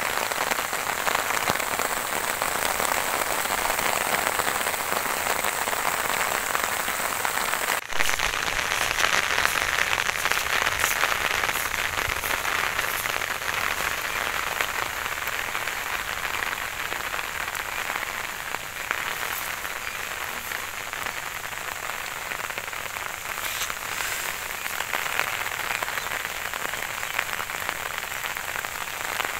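Steady rain falling on leaves and grass, an even hiss with single drops ticking now and then. There is a brief dropout about eight seconds in.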